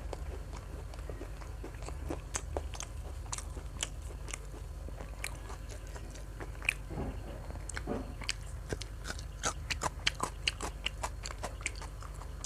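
Close-up eating sounds: a person biting and chewing food with many small crunching clicks, which come thicker in the last few seconds.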